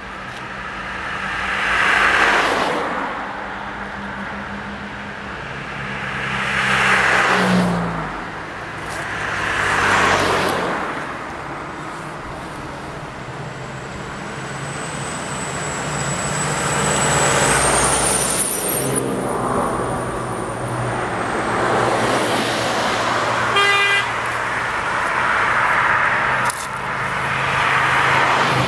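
Road traffic passing close by: cars and a truck driving past one after another, each swelling and fading. A faint high whine sounds midway, and a short vehicle horn toot comes about two-thirds of the way in.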